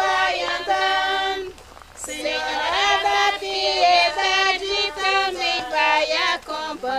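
Women singing an incelência de chuva, a traditional Brazilian folk chant for rain, together and unaccompanied, in slow drawn-out notes. There is a short breath pause about a second and a half in.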